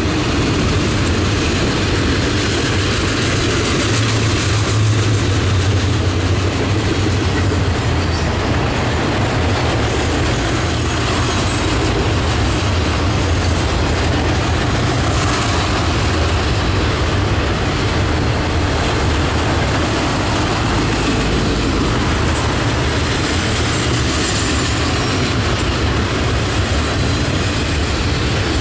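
Freight train cars rolling past: a steady low rumble of steel wheels on rail from double-stack container cars and trailer-carrying flatcars going by.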